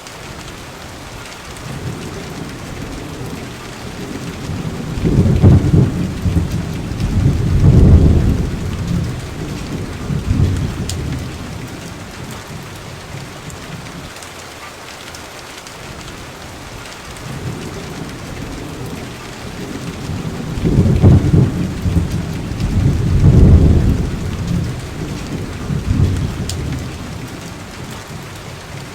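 Steady rain falling, with two long rolls of thunder: one a few seconds in and one a little past the middle.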